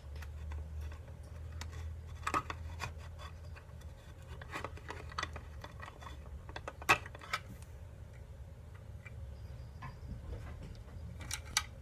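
Small plastic clicks and scrapes from handling a miniature toy tape dispenser and its cutter, with one sharper click about seven seconds in and a few quick clicks near the end. A low steady hum runs underneath.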